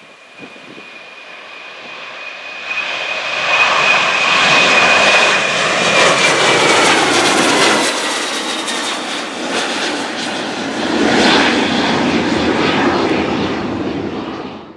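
Boeing 737 jet engines at take-off thrust: the roar builds over the first few seconds as the airliner accelerates and passes close overhead, with a high whine that drops slightly in pitch as it goes by. The noise swells once more, then cuts off suddenly.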